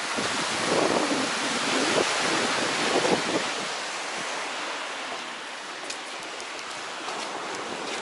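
Baltic Sea surf washing ashore, with wind buffeting the microphone in gusts during the first three seconds or so, then settling to a steady rushing hiss.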